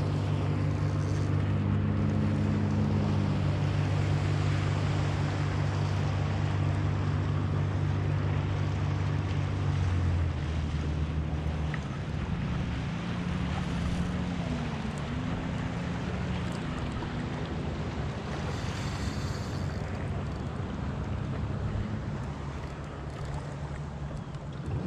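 Boat engine running, a steady low hum for about ten seconds, then shifting and wavering in pitch, over continuous wind and water noise.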